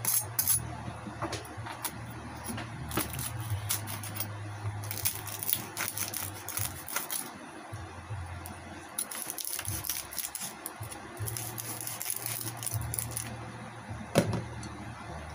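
Large kitchen knife cutting into a deep-fried pork head, its crisp skin giving scattered crackles, clicks and knocks of the blade, with a sharp knock near the end. A low hum comes and goes underneath.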